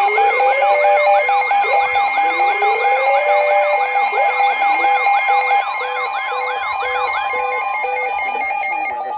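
Several electronic siren sounds layered at once: a fast yelp of about four sweeps a second, slow rising wails, and a two-pitch hi-lo beep, over a steady tone. The yelp stops about seven seconds in and the hi-lo beep about a second later, leaving the steady tone.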